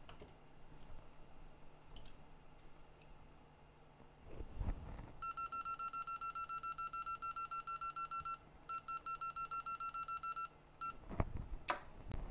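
Electronic beeper sounding a rapid, pulsing high-pitched beep for about three seconds, then, after a short break, for about two more seconds, followed by one short beep. Just before it there is a brief low rush of air, and a knock and a click come near the end.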